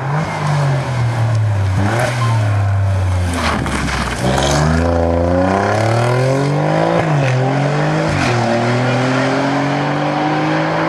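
Alfa Romeo saloon's engine, first easing off with its pitch falling, then accelerating hard. The pitch climbs, drops sharply at two gear changes about a second apart, and keeps rising.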